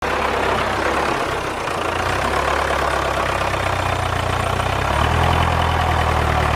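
Tractor engine running steadily with a low, even rumble that gets a little louder about five seconds in.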